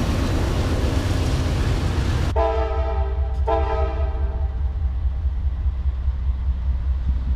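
A double-stack freight train rumbles past close by. About two seconds in, the sound cuts to a diesel locomotive's air horn sounding a steady chord of several tones for about two seconds, broken once very briefly. The horn then fades, leaving a low steady rumble.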